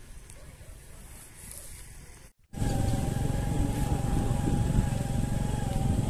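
Quiet outdoor background noise, then about two and a half seconds in a sudden switch to a motorcycle riding along: loud engine rumble and wind noise with a steady, slightly wavering whine.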